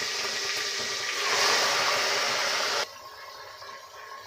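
Raw chicken pieces sizzling loudly in very hot oil in an aluminium pressure cooker, being half-fried. The sizzle swells about a second and a half in, then drops abruptly near three seconds to a quieter frying sizzle.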